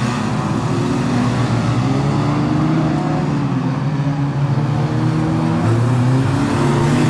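Several stock-car racing engines revving as the cars lap and pass close by, their pitches rising and falling and overlapping. Tyres hiss through standing water on the wet track.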